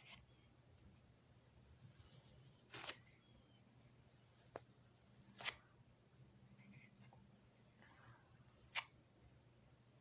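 Plastic dough scraper cutting through bread dough down to the worktop: three short, faint scraping strokes a few seconds apart, with a light click between them, over a low steady hum.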